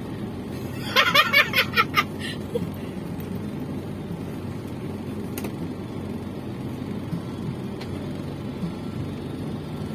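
Steady low rumble of a car's engine idling, heard inside the cabin. About a second in, a quick run of about seven high chirps lasts about a second and is the loudest sound.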